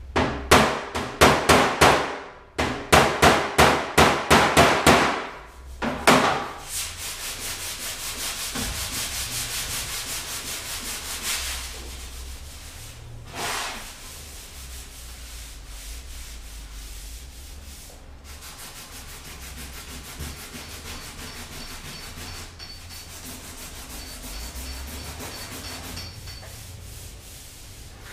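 Hand block sanding of body filler on a Land Rover bonnet. The first five seconds are loud back-and-forth rasping strokes, about three a second. A steadier, faster rub follows, then quieter continuous sanding with one short rasp about halfway through.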